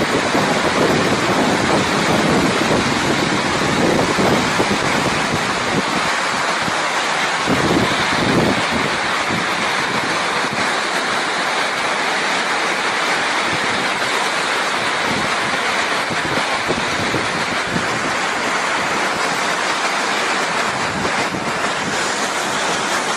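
Loud, steady rushing roar of fast-flowing floodwater, with no breaks or changes.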